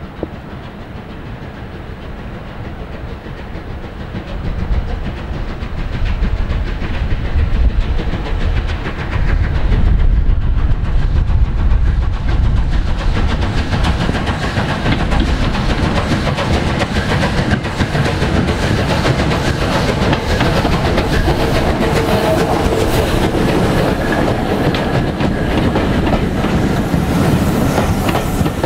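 Steam locomotive working hard as it approaches, its exhaust and rumble growing louder over the first ten seconds or so. Its train of coaches then passes close by, clattering over the rail joints.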